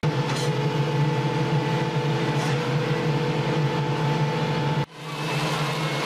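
Diesel engine and hydraulics of a GOMACO slipform concrete paver running at a steady working speed, a constant low drone with a hum. It cuts out for an instant a little before the end and fades back in.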